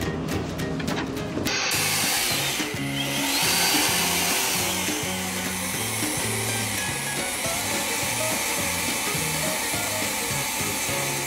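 Handheld electric leaf blower running, a steady rush of air. It starts about a second and a half in, dips briefly near three seconds in, then holds steady, over background music with a bass line.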